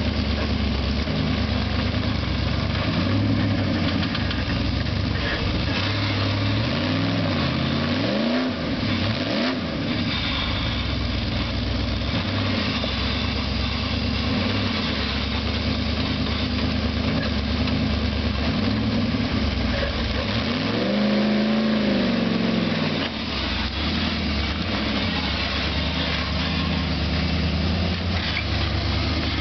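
Rock crawler buggy's engine running at low speed while it climbs over rock ledges, revving up and back down in brief surges about seven to ten seconds in and again around twenty-one seconds.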